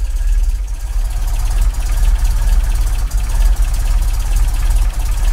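MGB's 1.8-litre B-series four-cylinder engine idling steadily with twin SU carburettors, freshly started after winter storage. Its valve clearances have just been adjusted, and it runs smooth with little tappet tick.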